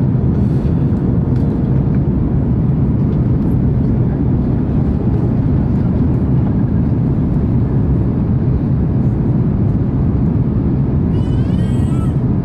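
Steady cabin noise of an Airbus A330-200 airliner on approach: an even, loud rumble of engines and airflow heard from inside the passenger cabin. A brief wavering high-pitched sound comes near the end.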